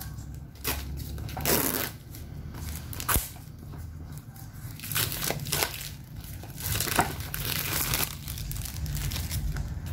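Plastic wrapping and bubble wrap crinkling and rustling in irregular bursts, with a few sharp clicks, as a sealed product box is handled and its plastic film is pulled off.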